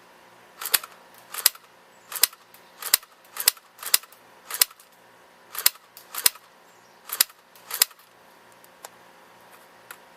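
Airsoft H&K MP5 N replica firing single shots: about eleven sharp snaps, roughly one every two-thirds of a second, then two faint ticks near the end.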